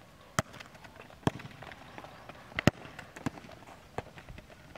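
A futsal ball being struck by the foot and slapping on a hard concrete court, with the player's running steps: five sharp, unevenly spaced knocks, the loudest about two and a half seconds in.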